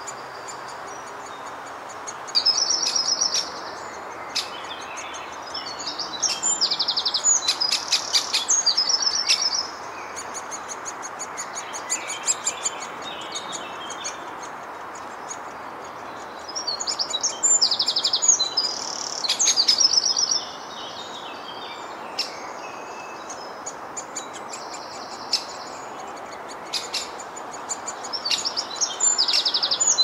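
Great spotted woodpecker nestling begging for food: bouts of rapid, high-pitched chattering calls, each lasting one to three seconds, repeated four times over a steady background hiss.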